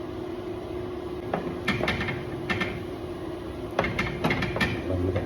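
Kitchen cookware being handled: a scatter of short knocks and clatters, about nine, over a steady hum.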